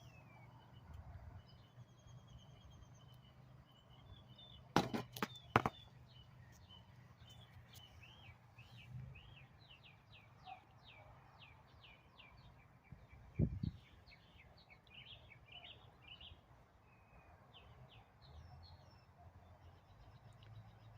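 Birds calling outdoors, with a quick run of short downward chirps, a few sharp clicks about five seconds in and a single knock a little past halfway, over a low steady rumble.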